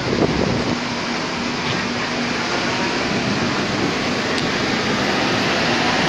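Pumped water from a lift-irrigation pump house surging out of its outlets and churning in the concrete delivery channel: a steady, loud rush, with a faint steady hum underneath.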